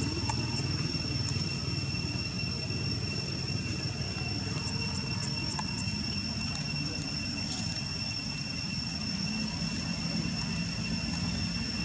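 Steady low rumble with a constant high-pitched whine over it, unchanging throughout, with a few faint ticks.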